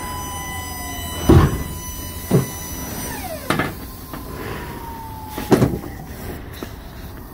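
Big-rig truck: a steady low rumble with four loud clunks and a thin high whine that twice slides down in pitch.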